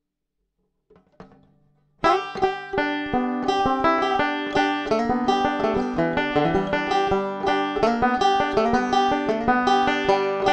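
Resonator banjo played as a rapid run of plucked notes, heard through a Pick Up the World piezo pickup with EQ. The playing starts sharply about two seconds in, after near silence.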